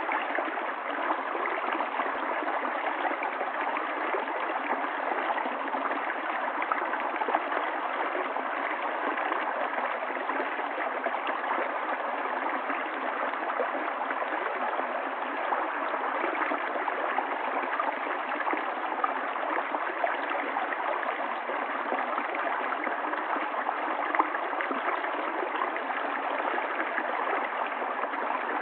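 Running water of a stream: a steady, even rush and splash of flowing water.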